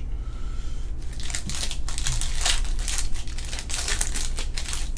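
Trading-card pack wrappers crinkling as packs are opened, a quick run of sharp crackles that starts about a second in.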